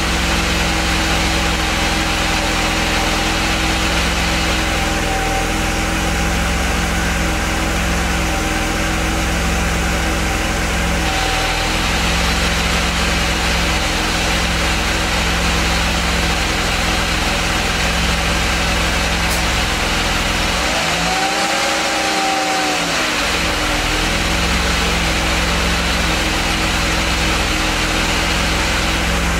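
Mercedes-Benz W124 five-speed manual gearbox making a steady grinding noise with the engine idling, a noise that after a cold start grows stronger as it warms. About two thirds of the way through, the grinding stops for about two seconds while the clutch pedal is pressed, then comes back.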